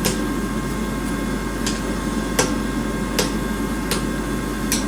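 Hammer blows on a steel bar being forged straight, struck at a steady rhythm of about one blow every 0.8 s, over a constant background rush.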